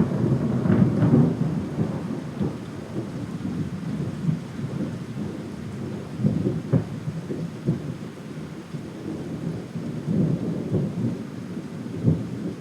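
A long roll of thunder, loudest at the start, rumbling on with a few sharp cracks and slowly easing off.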